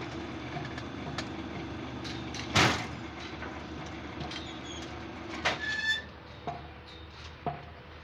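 Electric rebar bending machine running while bending a bundle of steel rebar into stirrups. Its motor hums steadily, with loud clanks of steel bars against the machine about two and a half seconds in and a ringing metallic clatter near six seconds. The hum then fades, followed by two lighter knocks.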